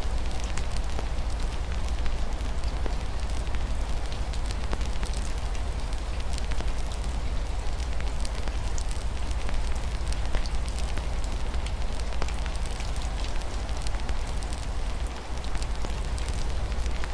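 Wood fire crackling with frequent sharp pops over a steady rush of rain, and a constant low rumble underneath.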